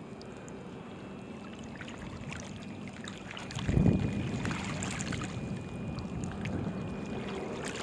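Wind buffeting the microphone in a low, steady rumble, with a stronger gust about halfway through that stays louder afterwards. A few faint ticks and rustles are scattered through it.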